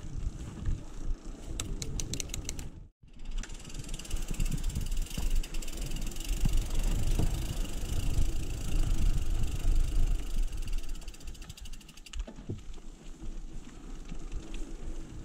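Mountain bike rolling over cobblestone paving: low tyre rumble and wind on the microphone, with the rear hub's freewheel ticking rapidly while coasting. The sound cuts out briefly about three seconds in, and the ticking stops near the end.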